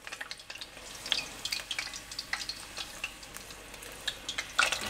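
Egg rolls deep-frying in hot oil: a steady fizzing crackle with scattered pops, which gets louder and busier near the end.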